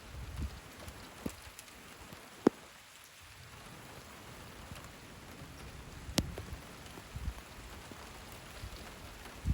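Steady rain falling, with a few sharp drops striking close by. The loudest drop is about two and a half seconds in, and another is near six seconds.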